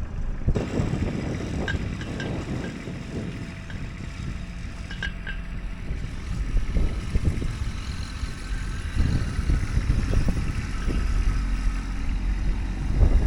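Kubota B-series compact tractor's diesel engine running steadily as it pulls a one-bottom plow through dry, hard ground, with a few faint clicks.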